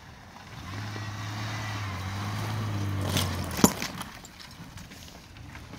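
Mitsubishi Pajero Sport's engine running as the SUV drives through mud and snow, growing louder as it approaches and passes, then fading. A single sharp knock about three and a half seconds in is the loudest sound.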